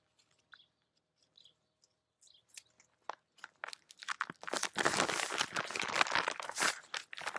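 Duct tape and a laminated plastic shopping bag being handled as the bag's sides are taped shut: near silence at first, then a few clicks, then a dense crackling and crinkling lasting a couple of seconds.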